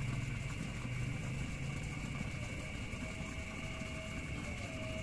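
Steady night-time outdoor background: a continuous high-pitched drone over a low rumble, with no distinct events.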